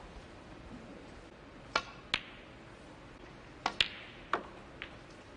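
Snooker balls clicking: about six sharp clicks of the cue tip on the cue ball and of ball striking ball, each with a short ringing tone. The clicks come in pairs, a couple of seconds apart.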